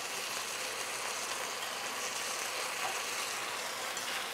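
Chopped onions frying in hot oil, a steady sizzle.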